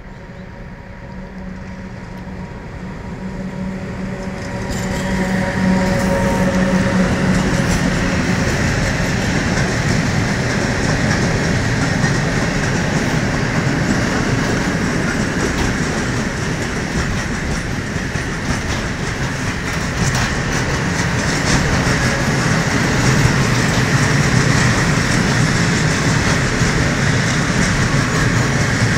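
Train approaching and passing close by: a steady hum grows louder over the first few seconds, then from about five seconds in the train's wheels on the rails make a loud, continuous rumble to the end.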